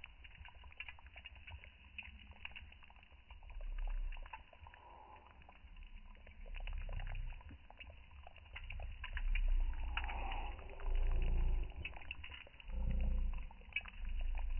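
Wood fire crackling under a clay pot of bean stew, with the stew simmering, and several louder low rumbles coming and going.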